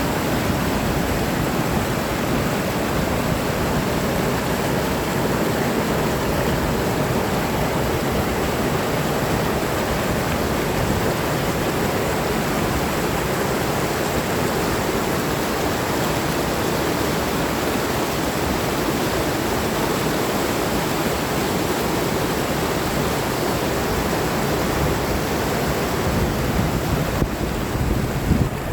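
Steady, unbroken rush of water and wind at an even level.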